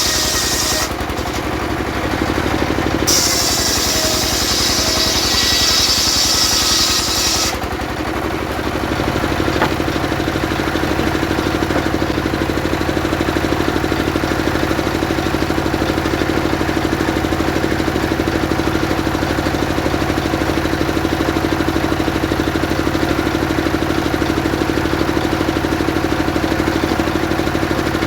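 Engine-driven mobile circular sawmill cutting sengon wood: a loud, high hissing cut for the first seven or so seconds, easing off briefly about a second in, then the engine running steadily with the blade spinning free.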